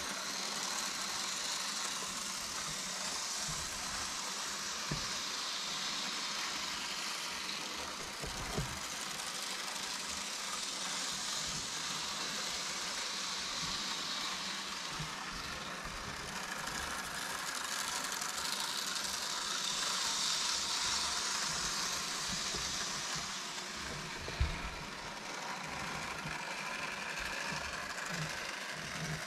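Small N and Z scale model trains running on their track: a steady high whir that swells louder twice, a few seconds in and again past the middle, with a few faint clicks.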